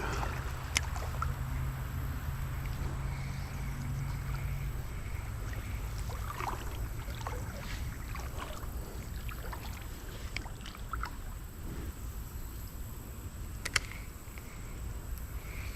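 Water sloshing and splashing in a shallow creek as someone wades, with a low steady rumble, scattered small splashes and two sharp clicks, about a second in and near the end.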